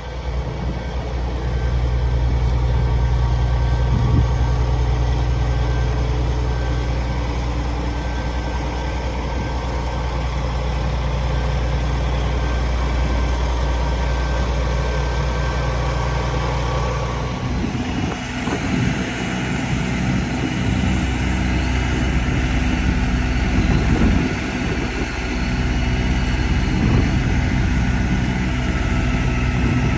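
A Peterbilt 357 truck's diesel engine idles steadily. About seventeen seconds in, the sound changes to a busier, higher running with a steady whine over it, as the truck's hydraulic under-bridge boom is being worked.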